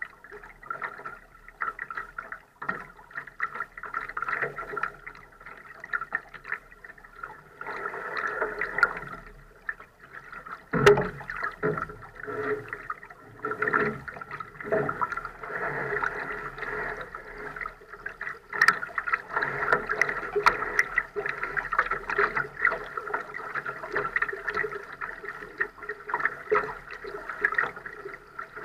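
Water gurgling and lapping against the hull of a Laser sailing dinghy moving in light air, an uneven, flickering wash with a few sharp knocks, the loudest about eleven seconds in.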